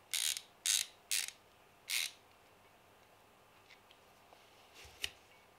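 Socket ratchet clicking in four short rasping bursts, about one every half second, as it turns the bleed screw on a cast-iron brake caliper. A few faint ticks follow, then a sharper click about five seconds in.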